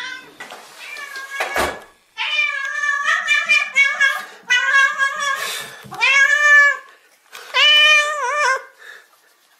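A domestic cat meowing loudly and insistently: a quick run of short meows, then two long drawn-out meows, the last one wavering in pitch. A single soft knock comes just before the meowing starts.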